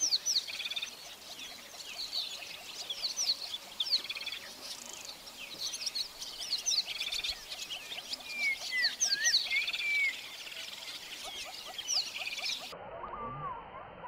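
A chorus of many wild birds chirping and whistling over one another. Near the end the sound turns duller, with a few lower, gliding calls.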